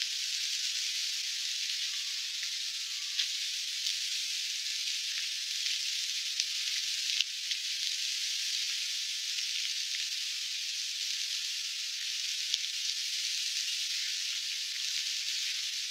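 Steady hissing noise, like static or frying, with a few faint clicks scattered through it.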